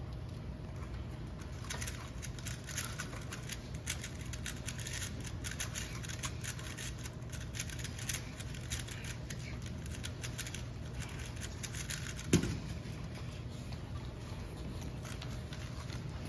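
Plastic 3x3 speedcube being turned very fast, a dense run of rattling layer-turn clicks over a steady venue hum. About twelve seconds in comes one sharp slap as hands hit the Speed Stacks timer pads to stop the solve, and the turning stops.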